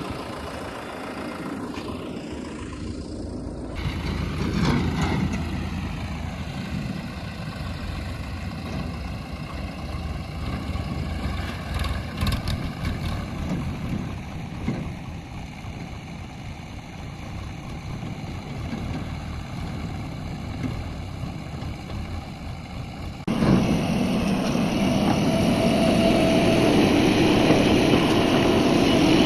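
Heavy diesel engine of a JCB 3DX backhoe loader running and revving up and down as it works soil. The sound becomes abruptly louder and fuller near the end.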